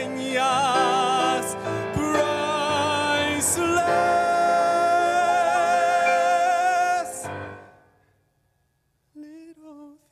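A male singer with strong vibrato, accompanied by a grand piano, building to a long held final note that breaks off about seven seconds in and dies away into near silence. Soft piano notes start again near the end.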